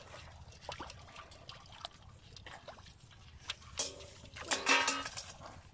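Hands groping and splashing in shallow, muddy pond water: small scattered splashes, drips and trickles. A short, louder pitched sound comes about four to five seconds in.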